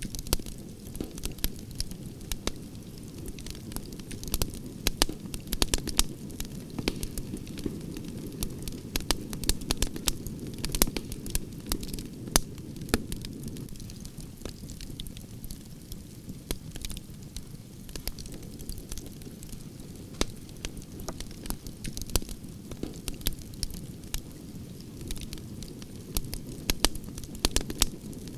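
Wood fire burning, with a steady low rumble and frequent irregular sharp crackles and pops.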